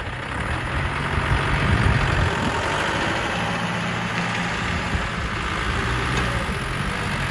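Heavy diesel engine of a dump truck or excavator running steadily at low revs, a little louder about one to two seconds in.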